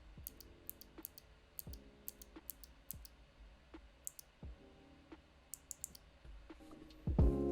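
Kailh Box White clicky keyboard switch being pressed repeatedly, giving crisp, high clicks, many of them in quick pairs, over faint background music.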